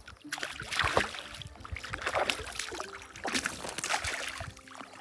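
Water splashing and sloshing in repeated surges, about one a second, as two hooked fish are played at the surface.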